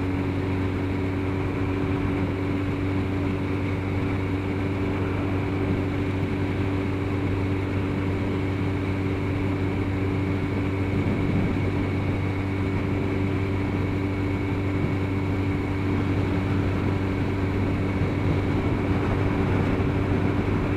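Motorcycle engine running at a steady cruising speed, an even drone with road and wind noise and no change in pitch.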